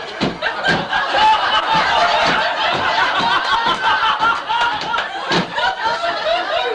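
Audience laughing and chuckling, many voices at once, with a few sharp knocks.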